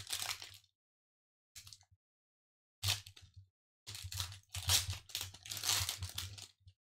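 Foil wrapper of a Pokémon Vivid Voltage booster pack crinkling and tearing as it is opened by hand, in short bursts that grow into longer crinkling in the second half.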